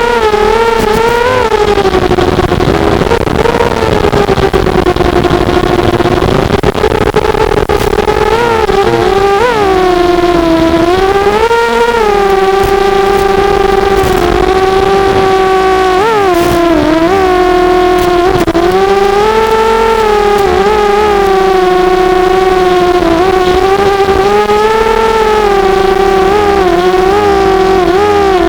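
Four small brushless motors of a 250-size FPV quadcopter (RCX1804 2400kv) whining steadily. The pitch dips and swings back up several times as the throttle changes.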